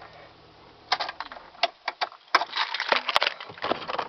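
A 2000 Dodge Caravan's idling engine is switched off with the key about a second in, its low hum dying away. Clicks, knocks and key rattles follow as the keys and the driver's door handle are worked.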